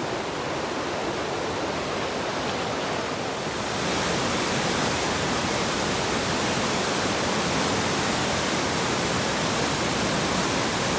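Steady rushing of a mountain creek, an even whooshing of running water that becomes louder and brighter about three and a half seconds in.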